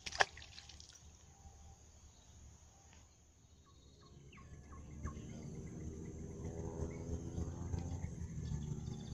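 A short splash just after the start. From about four seconds in, a boat engine's low, steady drone grows louder as the vessel comes closer.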